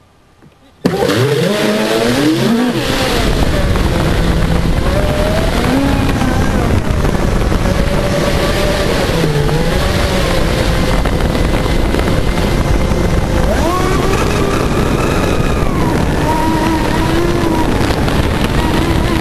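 Electric RC offshore race boat's motor, heard on board, whining up steeply in pitch about a second in as it launches at full throttle, then wavering with the throttle and climbing again past halfway, over loud rushing water spray from the hull.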